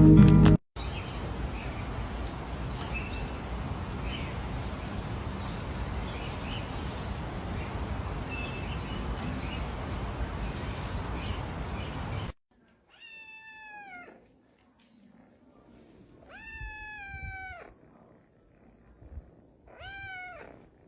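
Background music cuts off about half a second in, and a steady hiss with faint high chirps follows for about twelve seconds. Then an animal calls three times, each call about a second long and falling in pitch.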